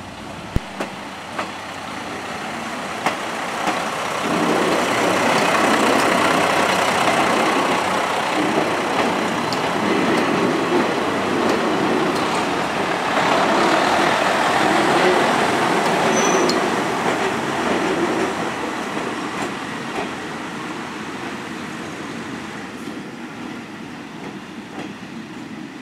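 Kanto Railway KiHa 0-series two-car diesel railcar passing at low speed, its engine and its wheels on the rails growing louder about four seconds in and fading away toward the end. A few sharp clicks come in the first few seconds.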